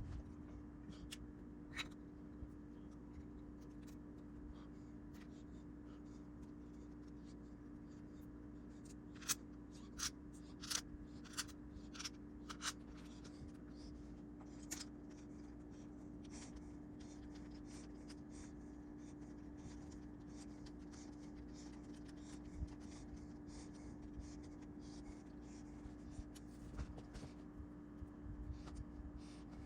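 Faint scattered clicks and light scraping from small objects being handled, over a steady low hum.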